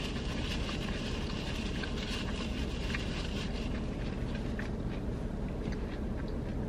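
A person chewing fried food with the mouth closed, making small wet clicks and crunches that thin out after the first few seconds, over a steady low hum inside a parked car.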